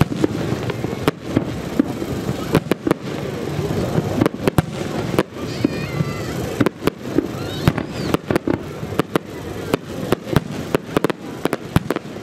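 Aerial fireworks going off in quick, irregular succession, many sharp bangs and crackles, over the steady murmur of a crowd of spectators.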